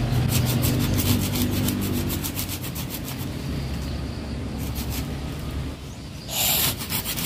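A hand pruning saw cutting through a waru Taiwan branch just below an air layer. It makes quick, rhythmic back-and-forth rasping strokes that fade after a few seconds, with one short louder rasp near the end.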